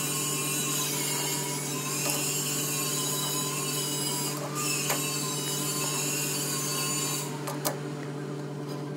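Steady machine hum in a metal-working shop, with a few light clicks about two to three seconds apart as a lathe's three-jaw chuck is turned by hand against a dial indicator.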